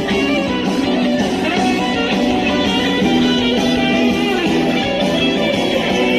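Music with guitar playing, strummed and plucked, steady throughout.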